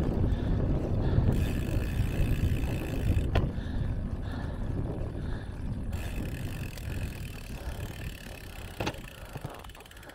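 Wind buffeting the microphone of a road bike in motion, a heavy low rumble that fades steadily as the bike slows. There are a couple of sharp clicks, one about a third of the way in and one near the end.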